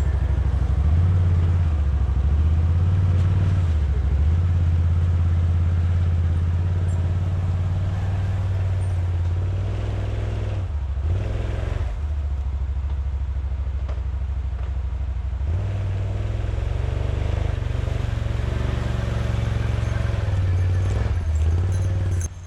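ATV engine running under load in deep snow, its pitch rising and falling as the throttle is worked while the quad struggles to move.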